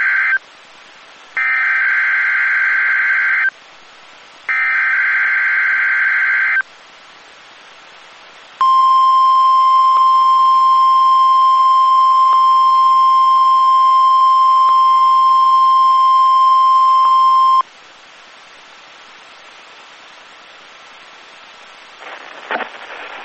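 NOAA Weather Radio weekly test signal over a radio receiver: the SAME digital header sent three times as buzzy warbling data bursts of about two seconds each, a second apart, then the steady 1050 Hz warning alarm tone held for about nine seconds, then radio hiss.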